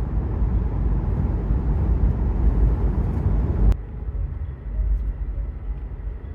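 Steady low road and engine rumble inside the cabin of a moving 2021 Subaru Outback. A little under four seconds in, it drops abruptly to a quieter level.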